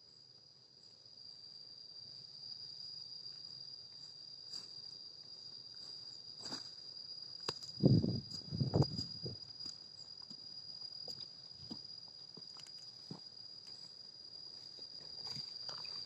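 Insects, cricket-like, trilling steadily on one high pitch. A couple of heavy thumps and rustles come about halfway through.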